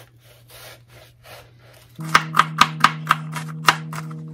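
A chef's knife cutting an onion on a plastic cutting board: soft, slow slicing strokes at first, then about halfway through quick, sharp chops, about four a second, as the onion is diced. A steady low hum comes in with the chopping.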